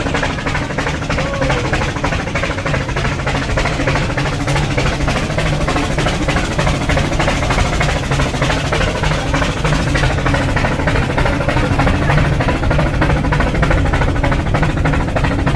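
Rack steam locomotive puffing steadily with a fast, unbroken run of exhaust beats as it climbs the mountain line.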